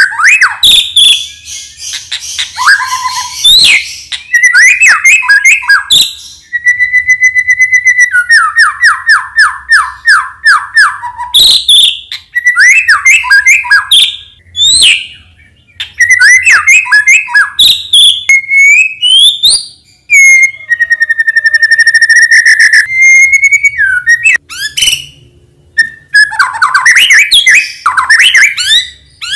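White-rumped shama (murai batu) singing loudly and almost without pause: a varied string of clear whistles, fast trills and chattering phrases with rising and falling notes, and one long steady whistle just past the middle. The song is packed with imitations of other birds' calls.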